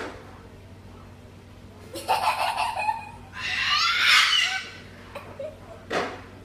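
White cockatoo calling twice: a shorter call about two seconds in, then a louder, longer one around four seconds as it raises its crest and spreads its wings. A brief sharp sound follows near six seconds.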